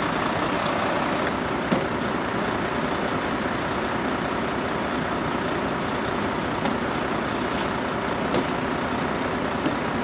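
Steady, even running noise of an idling engine, with a few faint clicks.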